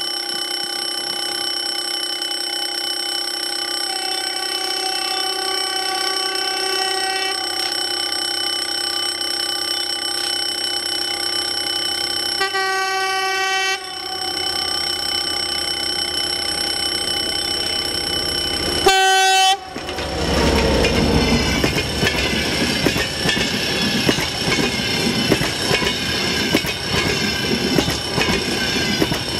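TEP70BS diesel locomotive sounding its horn in long, steady blasts as it approaches, the tone changing a few times, with a short, loudest blast as it reaches the listener about two-thirds of the way in. Then the passenger coaches roll past with a steady rumble and clatter of wheels over rail joints.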